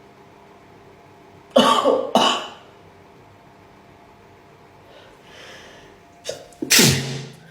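A person coughing twice, about half a second apart, then another loud burst of coughing near the end.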